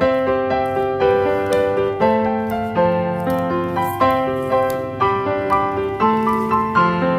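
Background piano music: a steady stream of notes, each struck and fading.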